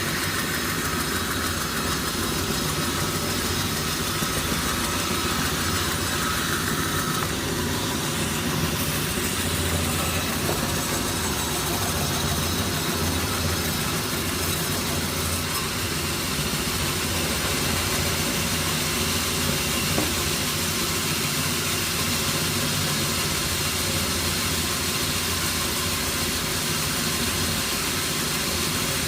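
Sawmill machinery running steadily: an even, engine-like drone with a low hum underneath, holding at the same level throughout.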